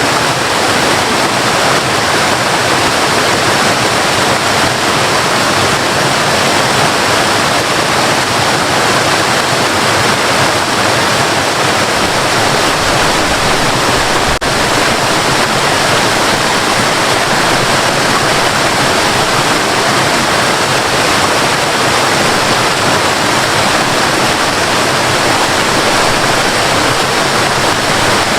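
A waterfall's steady, loud rushing water. There is a momentary dip with a faint click about halfway through.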